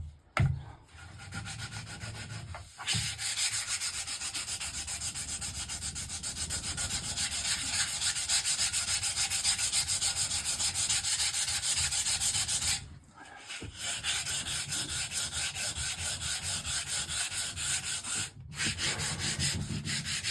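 Sandpaper rubbed by hand over old solid wood in quick, even back-and-forth strokes, breaking off briefly twice. A short knock comes just after the start.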